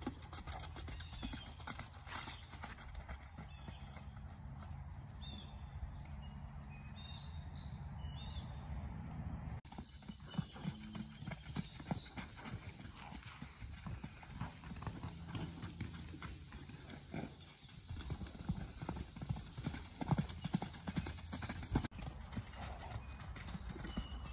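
Buckskin pony's hooves beating on grass turf as it trots and canters loose, a running series of dull hoofbeats.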